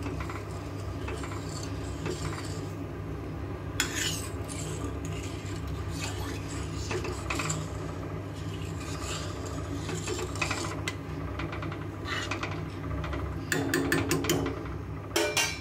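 Flat metal spatula scraping and stirring thick lentil dal in a metal wok, with scattered clinks against the pan and a busier run of scrapes near the end. A steady low hum sits underneath.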